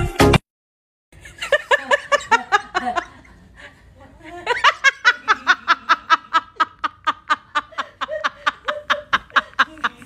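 A person laughing hard in quick repeated bursts, about four to five a second. It starts about a second in after a moment of silence and breaks off briefly halfway through.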